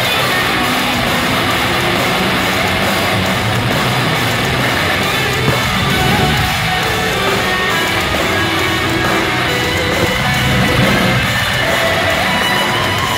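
Heavy metal band playing live at loud volume, with electric guitar.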